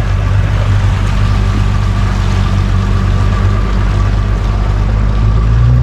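Small motorboat's engine running steadily with the boat under way, with rushing water and wind noise over it; the engine's hum rises slightly in pitch near the end.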